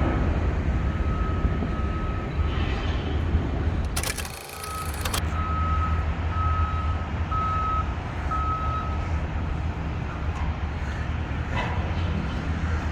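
A vehicle's reversing alarm beeping about once a second, with a single high tone, over a steady low rumble of engine and traffic noise. There is a brief break in the sound about four seconds in.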